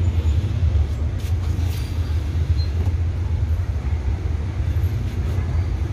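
Steady low rumble of background noise, with a few faint light ticks.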